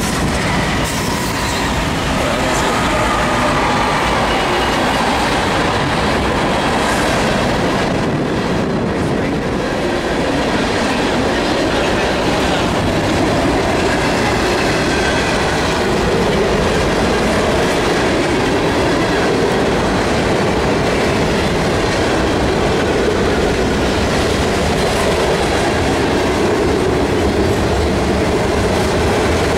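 Norfolk Southern freight train passing close by: diesel locomotives at the start, then a long string of freight cars rolling past, wheels clattering over the rails in a loud, steady rumble.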